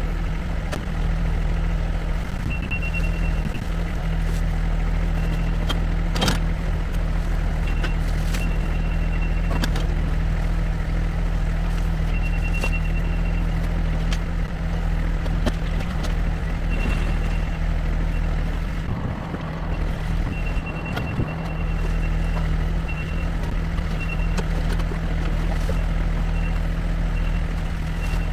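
Diesel engine of earthmoving equipment running steadily, with a high beeping tone that comes and goes and a few sharp knocks about six and eight seconds in.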